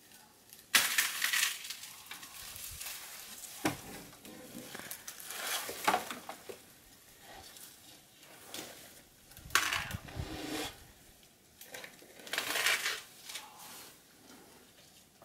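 African elephant breaking off branches and chewing them: irregular crunching and snapping of wood and leaves every few seconds, the loudest about a second in.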